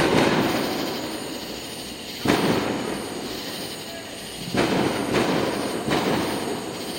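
Fireworks going off: a series of booms, the first three about two seconds apart and then two more in quick succession, each followed by a long rolling rumble.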